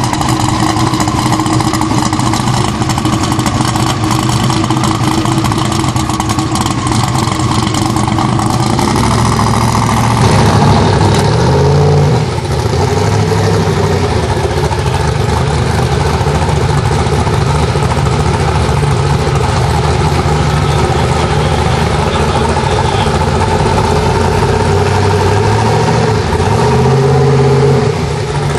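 Twin-turbocharged Buick Grand National engine running at low revs, a steady idle and slow running, with the pitch briefly rising and falling about 11 seconds in and again near the end.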